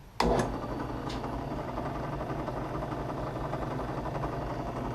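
Delta 11-950 benchtop drill press switched on with a click, then its motor and spindle running at a steady hum.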